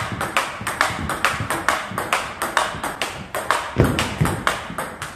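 Table tennis rally: a celluloid-type ball clicking rapidly off rubber paddles and the table top, about four hits a second in an even rhythm, with one heavier knock near the end before the hits stop.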